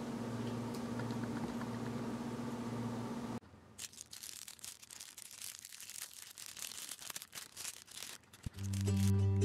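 A low steady hum, then from about a third of the way in, a thin clear plastic wrapper crinkling and crackling as it is pulled open by hand. Acoustic guitar music comes in near the end.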